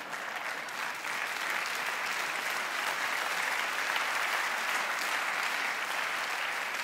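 A large seated audience applauding steadily, a sustained round of clapping.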